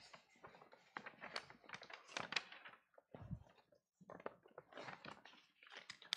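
Faint rustling and soft clicking footsteps of a person walking while holding papers, with one soft low thump about three seconds in.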